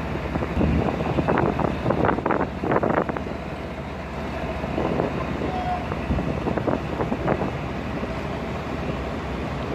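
Tugboat engine running with a steady low rumble while the tug works against the hull of a fishing vessel. Wind buffets the microphone, heaviest in the first few seconds.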